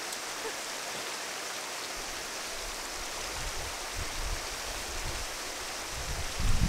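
A river rushing steadily, with low muffled bumps starting about two seconds in and strongest near the end.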